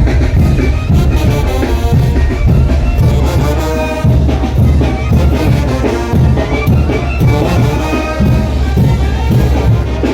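Live brass band playing a son de chinelo: a brass melody over drums, with a strong steady beat.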